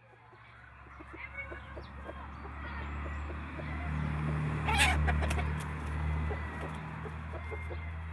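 Chickens clucking, with one loud hen squawk near the middle as a rooster mounts her, over a steady low hum.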